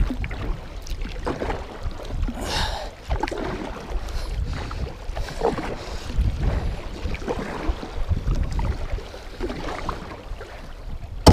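Kayak paddle blades dipping and pulling through the water in quick, hard strokes, each one a splash, over a low wind rumble on the microphone.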